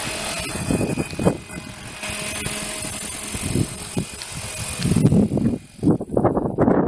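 Radio-controlled scale helicopter (Align 700) running, a steady mechanical hiss with a faint thin whine. About six seconds in the hiss drops away, leaving irregular low rumbles.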